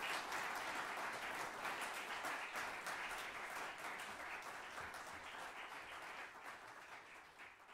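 Audience applause, many people clapping, gradually dying away.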